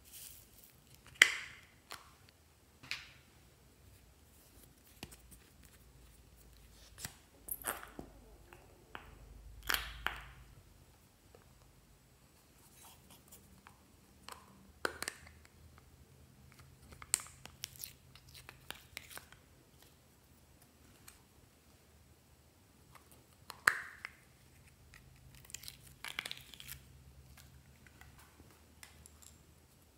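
Small plastic containers of slime toppings being handled and snapped open and shut: scattered clicks, pops and crinkly rustles with quiet gaps between. The sharpest snaps come about a second in and again near the end.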